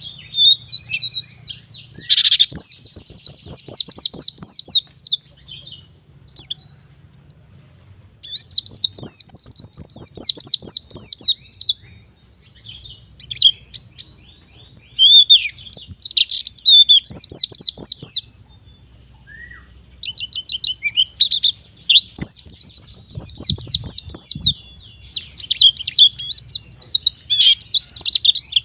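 White-eye (pleci) singing its fast, rapid-fire 'nembak' song: long runs of high twittering and chattering notes in phrases a few seconds long, separated by short pauses.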